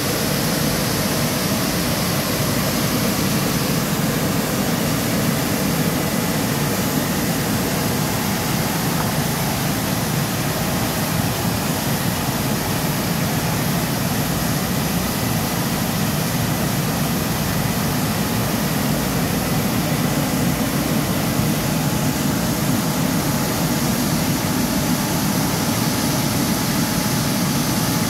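Automatic rollover car wash gantry running its cycle with no car in the bay: a steady, loud mechanical whir of its motors, with a faint steady whine.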